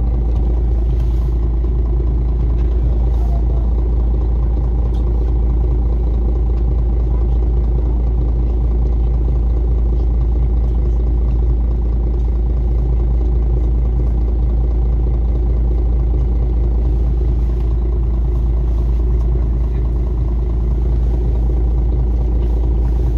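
City bus engine idling while the bus stands at a stop, heard from inside the passenger cabin: a steady low rumble.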